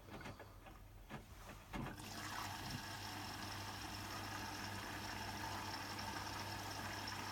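Hotpoint WMFUG942 washing machine filling for the start of the wash: about two seconds in, water starts rushing in steadily with a low hum under it.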